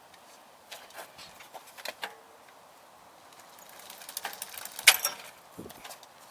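Light metallic clicks and rattles from a bicycle's rear derailleur and chain being adjusted and test-shifted, a few clicks about a second in, then a denser clatter with one sharp louder click about five seconds in.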